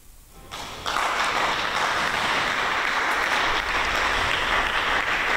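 Congregation applauding: the clapping starts about half a second in, swells within a second, then holds steady.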